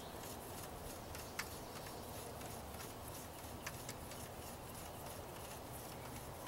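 Quiet room tone with a faint steady hiss and two small faint clicks, about a second and a half in and again near four seconds.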